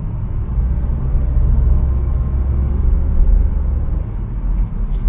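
Steady low rumble of a Renault Grand Espace van on the move, engine and tyre noise heard from inside the cabin.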